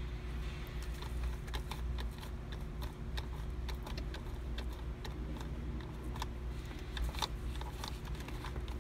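Microfiber cloth scrubbing the plastic steering-wheel control buttons of a Mercedes-Benz R500: rubbing with quick, irregular clicks like typing, over a steady low hum.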